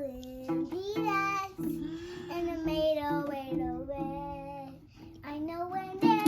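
A young child singing a wavering, gliding melody over background music with steady held notes.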